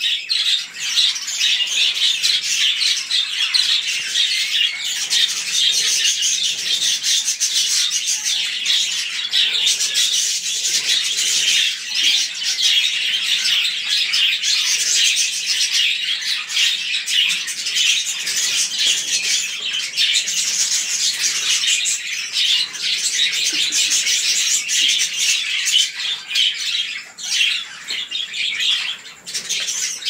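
A flock of budgerigars chattering continuously, a dense, unbroken mix of many rapid high chirps.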